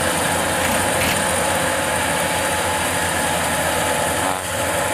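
Kubota DC-105X combine harvester running steadily as it cuts and threshes rice, a continuous machine drone with a thin high whine over it.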